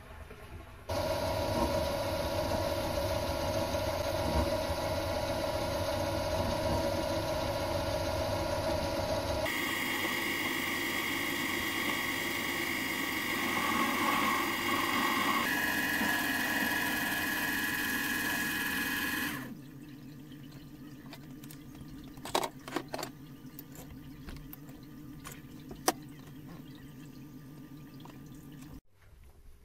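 Mini metal lathe running with a steady, multi-pitched whine as its turning tool faces the end of a metal workpiece in the spinning chuck. The pitch shifts suddenly twice, then about two-thirds through it drops to a quieter low hum with a few sharp clicks.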